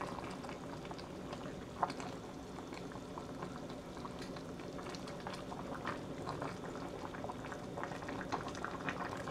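A pot of great northern beans and ham boiling steadily on the stove, bubbles popping, with one sharper click about two seconds in.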